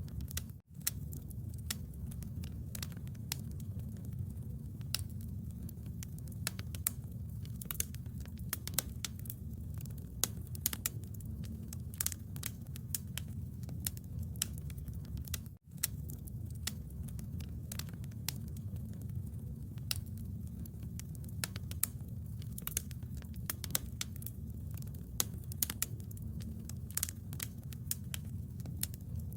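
Bonfire burning, with a steady low rumble and dense, irregular crackles and sharp pops of wood. The sound cuts out to silence for an instant twice, about a second in and about halfway through.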